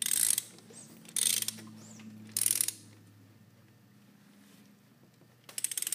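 Ratchet wrench clicking in four short bursts as the engine is slowly turned over by hand.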